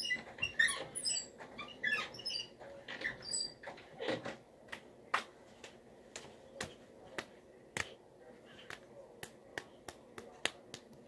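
A child keeping a homemade beat: high squeaky chirps for the first few seconds, then a steady run of sharp hand claps or snaps, about two a second.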